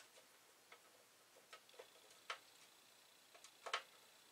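Faint, irregular clicks and taps of a screwdriver and small screws against the Amiga 1000's sheet-metal top shield as screws are fitted, two of them louder, about halfway and near the end.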